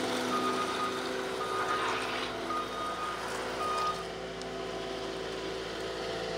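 Caterpillar 242D skid steer's diesel engine running steadily as the machine drives, with its alarm sounding a string of high, evenly repeated beeps that stop about four seconds in.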